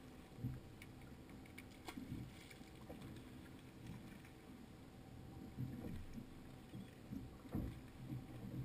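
Small waves slapping against the hull of a drifting fishing boat in low, irregular thumps, over a faint steady hum, with a few light clicks about two seconds in.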